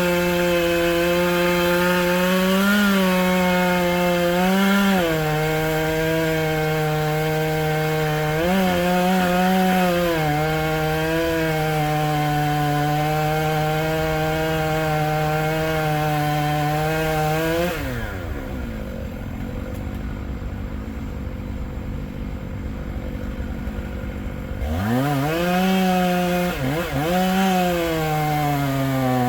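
Two-stroke chainsaw running at full throttle through bur oak, its pitch sagging and recovering as the chain bogs in the cut. About 18 seconds in it drops to idle for several seconds, then revs back up and cuts again.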